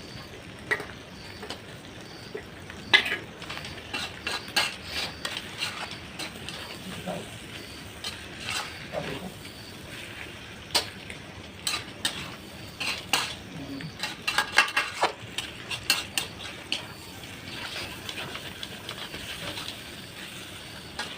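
A metal spoon stirring and scraping in a cooking pan, with irregular clinks against the metal, over a steady low hiss of frying.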